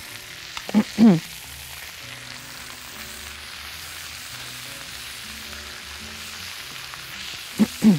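Chicken thighs, onion and spices sizzling steadily in a hot frying pan as chopped fresh coriander is stirred in with a spatula.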